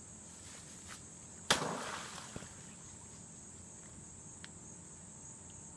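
Steady high-pitched drone of insects, with one sudden loud hit about a second and a half in that dies away within about half a second.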